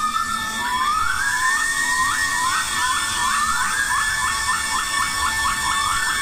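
Gibbon pair's territorial duet song: a whoop gliding upward in pitch, then a run of short repeated notes that come faster and faster.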